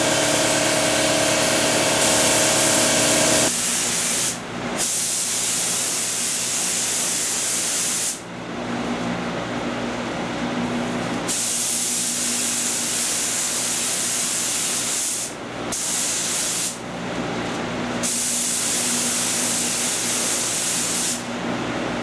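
Paint spray gun hissing as clear coat is sprayed, in long passes with the trigger let off several times between them. A motor hums steadily for the first three seconds or so, then stops.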